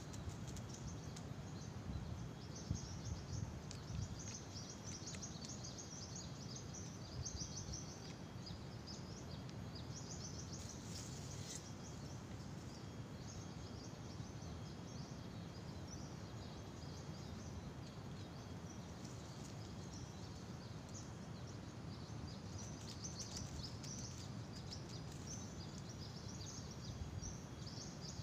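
Rural outdoor ambience: many small birds and insects chirping continuously in short high calls, with a faint steady high tone, over a low steady rumble.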